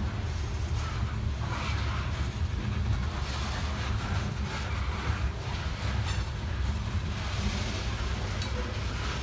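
Loaded coal hopper cars of a freight train rolling past, with a steady rumble and clatter of steel wheels on the rails.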